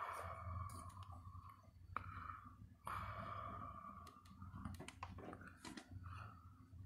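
Soft clicks and rustles of a phone being handled close to its microphone, with two breath-like hisses of about a second and a half each, near the start and about three seconds in.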